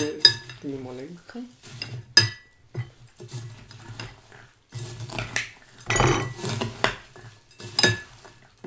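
A spoon mixing food in a bowl, with scraping and stirring and a few sharp, ringing clinks of spoon against bowl: at the start, about two seconds in and near the end.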